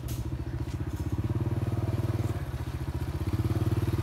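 Small motorcycle engine running steadily at low revs, a fast even pulse, with a couple of light clicks near the start.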